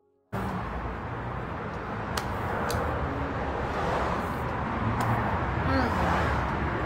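Steady background rumble and hiss from a phone recording, with a few faint clicks.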